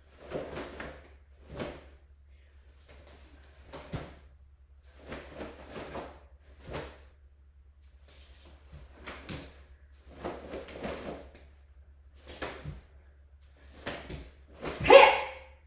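Karate gi sleeves snapping and bare feet sweeping and stepping on a concrete floor in a dozen quick bursts, the strikes, blocks and foot sweeps of the kata Chonan performed at full speed. About fifteen seconds in comes a loud, short shout, the kiai on the kata's final strike.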